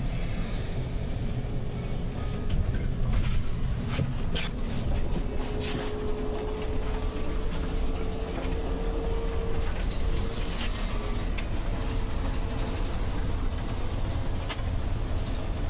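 City bus running along the road, heard from inside at the front: a steady low rumble of drivetrain and tyres. A faint whine rises slightly for a few seconds midway, and a few light rattles sound near the start of that.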